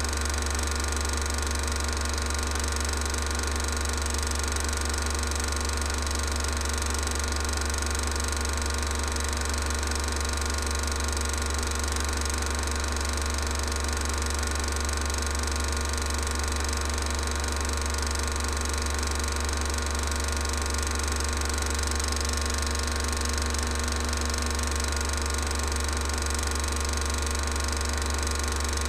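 Steady mechanical running of a 16mm cine film projector, an unchanging whir over a strong low hum, as the silent film is played.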